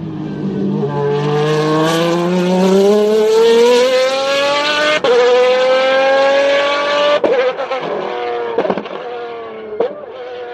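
Maserati MC12-style V12 race car engine accelerating hard, its pitch climbing steadily for about seven seconds with a brief break near five seconds. It then drops back and runs on at high revs, with short blips near the end.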